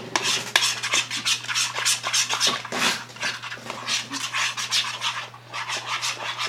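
Spoon stirring white glue in a bowl as it thickens into slime once the activator is added: a quick run of irregular sticky scraping and squelching strokes, several a second.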